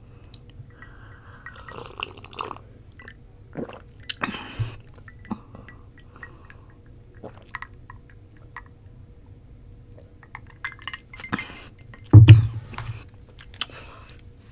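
Eating and drinking sounds close to the microphone: scattered small clicks and clinks of a glass and liquid sounds from a fizzy drink, with one loud low thump about twelve seconds in.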